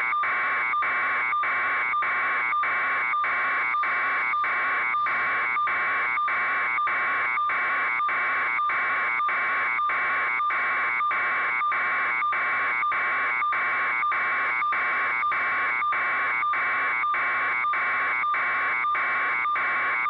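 Electronic alarm buzzer pulsing at a steady, unchanging pitch, about two to three buzzes a second.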